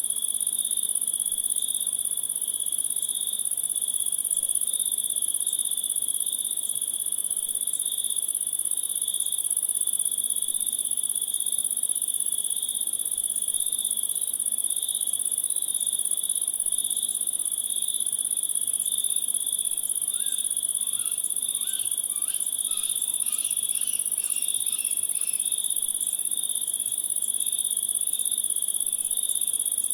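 Steady night chorus of crickets, two high continuous trills layered together. Between about twenty and twenty-five seconds in, a few brief chirps from another creature break in over them.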